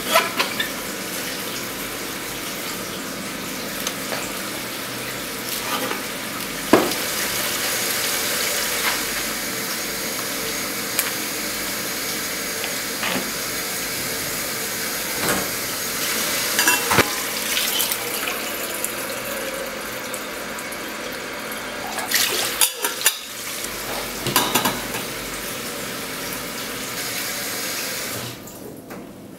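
Kitchen tap running steadily into a sink, with scattered clinks and clanks of pots, dishes and utensils. The running water drops away near the end.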